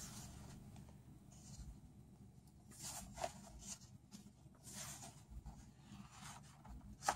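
Faint rustling of sketchbook paper as pages are handled and turned, a few soft rustles over near quiet.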